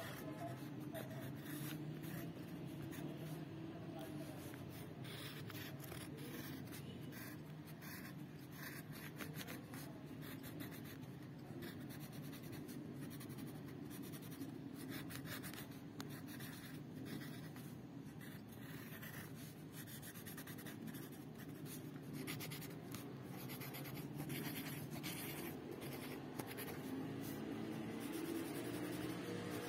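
Pencil scratching on paper in repeated short strokes as letter outlines are drawn, giving way near the end to a marker pen rubbing on paper as the letters are inked in.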